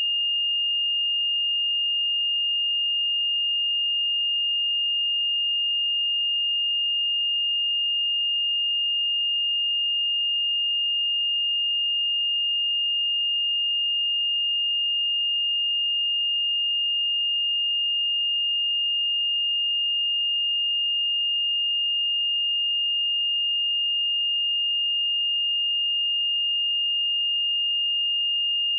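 A pure 2827 Hz sine-wave test tone, one steady high-pitched note held at constant level without any change.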